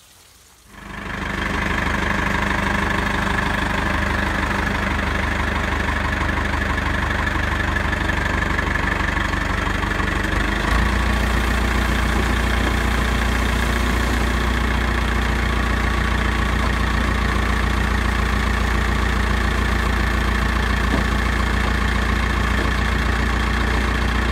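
Tractor engine running steadily, driving the rotating drum of a homemade 2,000-gallon chicken-house pad washer. It comes in suddenly about a second in, and a deeper low hum joins at about eleven seconds.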